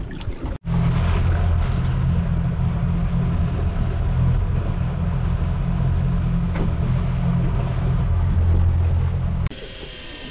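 Mercury outboard motor running steadily, a loud low rumble. About nine and a half seconds in it cuts abruptly to a quieter, thinner steady whine.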